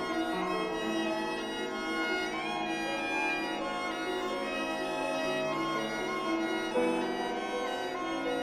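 Organ playing slow, sustained chords, several notes held at once and changing every second or so, in a thin, string-like tone.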